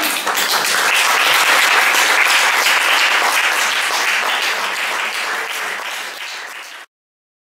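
Audience applauding, a dense steady clapping that eases slightly and then cuts off abruptly near the end.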